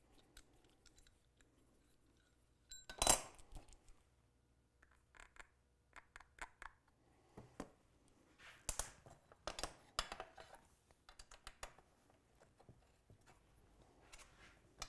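Small metal suspension hardware being handled, with light clinks, taps and clicks. One sharp, ringing metallic clink comes about three seconds in, and a scatter of quieter taps follows.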